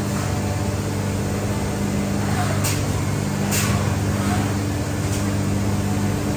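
CNC machining centre milling cast-aluminium throttle bodies under flood coolant: a steady machine hum under the hiss of coolant spray, with two brief sharper hisses near the middle.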